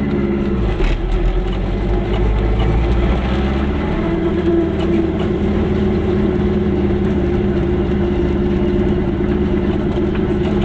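Goggomobil's small two-stroke twin engine running steadily as the car drives slowly, heard from inside the cabin, its pitch rising a little partway through.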